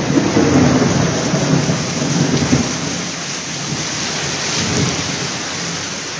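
Heavy rain falling steadily, with a low rumble of thunder in the first few seconds that fades away.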